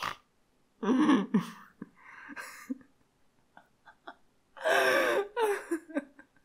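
A young man's breathy, stifled laughter and gasps in three bursts, about one, two and a half and five seconds in.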